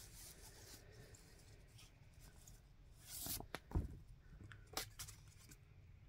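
Paper inner sleeves and a vinyl record being handled: faint rustling and sliding, with a louder scuff and a soft knock a little past halfway and a short click soon after.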